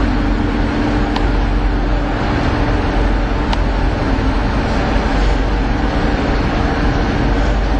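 Steady rumble and hum of a catamaran ferry's engines running, with water churning and splashing at its stern. A couple of faint clicks stand out briefly.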